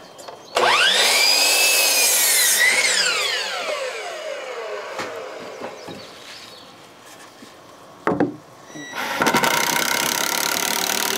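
Hitachi miter saw starting up with a rising whine, cutting through a lumber board, then spinning down with a falling whine. Near the end a cordless drill runs steadily, driving a screw into the wooden frame.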